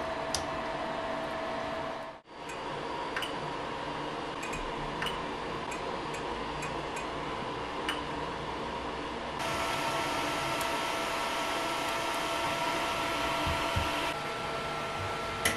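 Steady whirring hum of the Zonestar Z8PM4 Pro 3D printer's cooling fans running while the machine is powered on, with a few light clicks. The hum drops out for a moment about two seconds in and turns louder and hissier for a few seconds past the middle.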